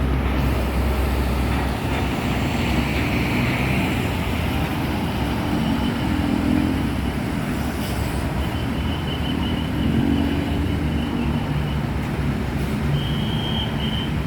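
Road traffic: vehicle engines running and passing with steady road noise. A faint high steady tone comes and goes a few times in the second half.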